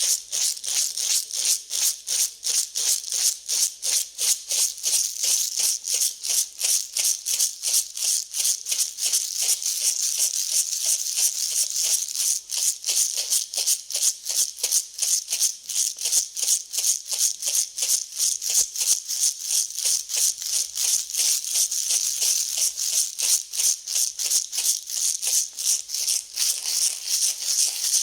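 Dry grain being mixed in a steady back-and-forth rhythm: a hissing rattle of kernels that pulses about three to four times a second.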